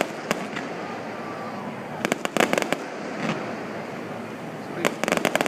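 Fireworks going off: a single crack just after the start, a quick cluster of cracks and pops about two seconds in, and another rapid cluster near the end.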